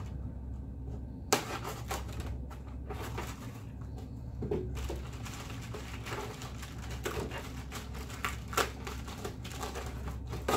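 Styrofoam packing case being opened and unpacked: a knife cuts along the seam of the foam case, then long foam inserts are pulled out, rubbing and scraping against each other. A sharp click about a second in, then many small clicks and scrapes.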